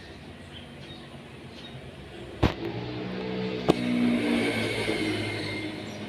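A motor vehicle passing close by: its engine swells up a little after halfway, then fades, with two sharp knocks just before and during the rise. Faint chirps of Eurasian tree sparrows in the first half.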